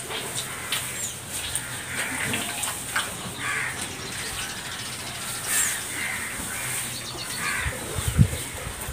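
Crows cawing, about five calls spaced a second or two apart, over the soft squelch and splash of palmyra fruit pulp being squeezed by hand in a basin of water. A couple of low thumps near the end.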